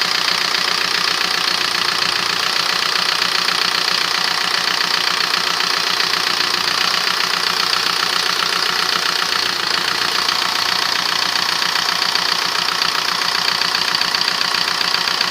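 Audi A3 1.9 TDI diesel engine idling with a steady, rapid diesel clatter, while its VE injection pump's fuel quantity is being reset to around 5 milligrams per stroke.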